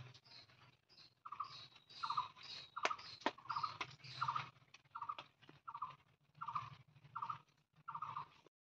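A small animal calling over and over in short, pulsing chirps, about a dozen of them, one every half second or so, with a couple of sharp clicks about three seconds in.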